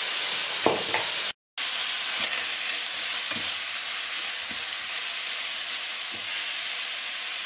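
Chicken pieces sizzling as they brown in a hot frying pan, stirred with a spatula that knocks against the pan a few times. The sound drops out completely for a moment about a second and a half in.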